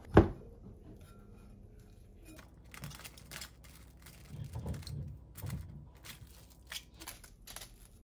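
One sharp knock as the dough ball goes into a ceramic bowl, then plastic cling wrap crinkling in a run of short rustles as it is pulled out and stretched over the bowl.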